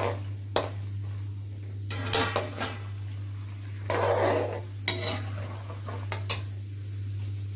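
Slotted metal spoon clinking and scraping against a metal pan as almonds are stirred in hot ghee, with sharp irregular clinks over a low sizzle of frying.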